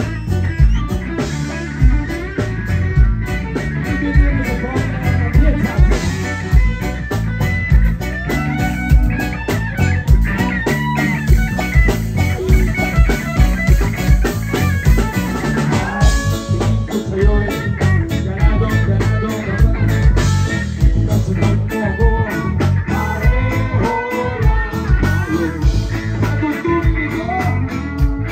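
A live rock-reggae band playing a song, with electric guitar, bass and a drum kit.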